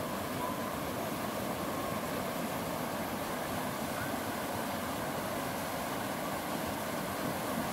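Steady rush of river water running over a riffle, an even wash of noise.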